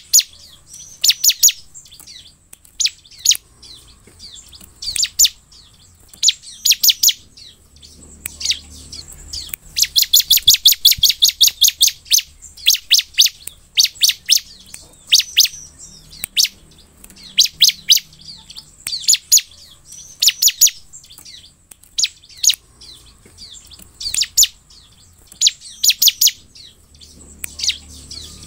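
Bar-winged prinia (ciblek) calling: sharp, high chirps in short groups, with a long fast run of chirps about ten seconds in.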